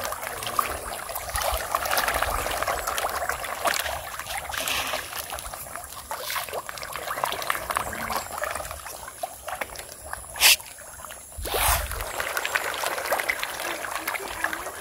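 A dense crowd of pond fish thrashing at the water's surface, a steady splashing and sloshing of many small splashes. Two brief louder sounds stand out, one sharp about ten and a half seconds in and a broader one about a second later.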